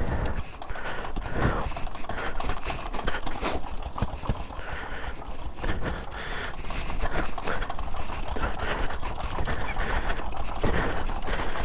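Veteran pre-1919 motorcycle engine running on the road, a rapid clatter of separate firing strokes.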